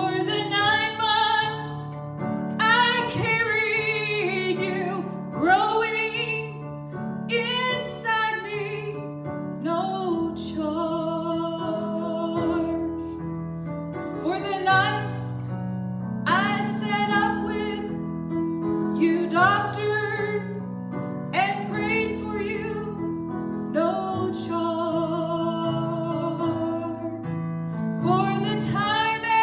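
A woman singing a melody with vibrato on the held notes, accompanied by piano.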